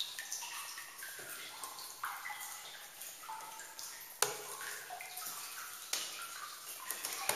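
Water dripping and plinking into a cave pool, many separate drops at different pitches. A sharp knock about four seconds in, and a smaller one about two seconds later.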